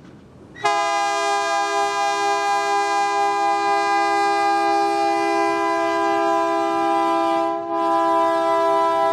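Locomotive multi-chime air horn sounding one long, loud blast that starts abruptly under a second in, breaks off very briefly near the end, and sounds again.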